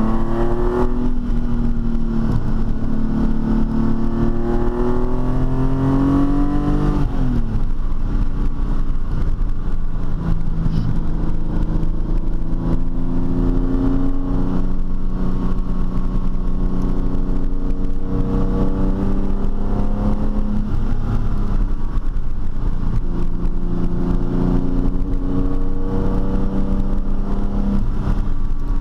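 TVR T350's straight-six engine pulling under load as the car is driven: the engine note climbs steadily, drops sharply at a gear change about seven seconds in, then holds and climbs again through the rest of the run, over a steady low road rumble.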